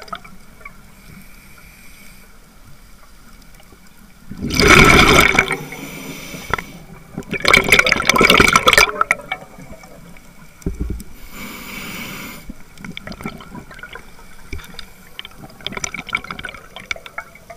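Scuba diver's regulator heard underwater: two loud rushes of exhaled bubbles, then a fainter one, with faint crackling and scattered small ticks between and toward the end.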